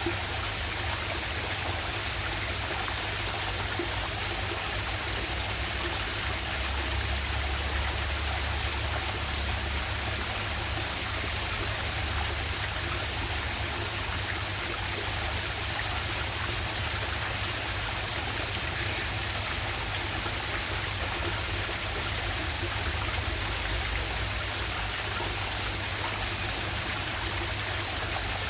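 Waterfall and stream water rushing and splashing steadily, with a low rumble underneath.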